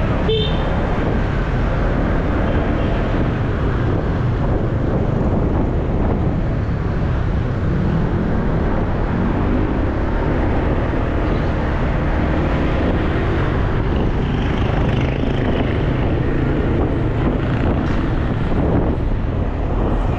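Motorcycle underway on the road: a steady rush of wind on the microphone over the engine running, its pitch climbing for a few seconds around the middle as it speeds up. A brief high beep sounds just after the start.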